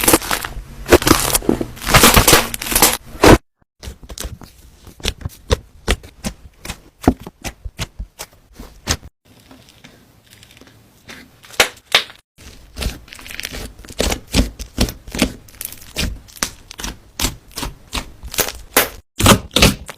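Slime being squeezed, poked and stretched by hand, giving dense runs of sharp sticky pops and crackles, broken by a few brief silences.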